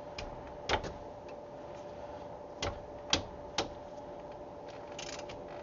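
A handful of sharp, irregular metal clicks as a wrench is worked on a brake caliper bolt, over a steady background hum.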